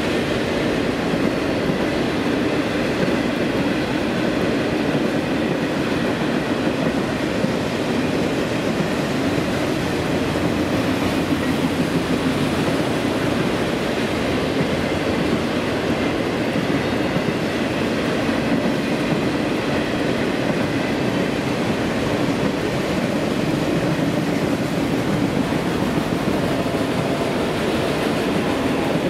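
CSX freight train's cars rolling past: a steady, unbroken rumble of steel wheels on the rails.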